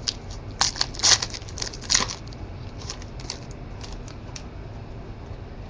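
Trading cards and their packaging handled at a table: crisp rustles and clicks, bunched in the first two seconds, then sparser light ticks that die away.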